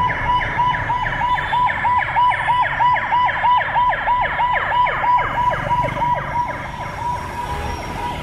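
Ambulance siren sounding a fast yelp, a quick falling tone repeated about four times a second. It is loudest through the middle and fades over the last couple of seconds as the ambulance passes. A low street rumble lies underneath.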